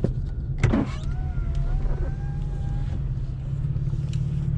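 A power window motor whines for about two seconds, its pitch rising slightly, over the low steady running of a 2015 Camaro's 3.6-litre V6 heard from inside the cabin. A sharp knock sounds just before the whine.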